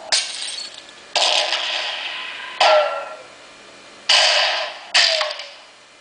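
Animatronic blue-and-gold macaws giving five loud macaw squawks through their built-in speakers, each starting suddenly and fading away, some ending in a short falling note.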